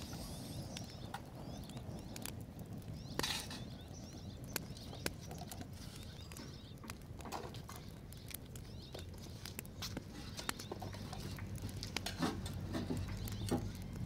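Wood fire crackling in the firebox of a brick stove, heard as scattered sharp clicks and pops, with light knocks of wood and cookware being handled. A brief hiss comes about three seconds in, and a cluster of knocks near the end as a stick of wood is pushed into the fire.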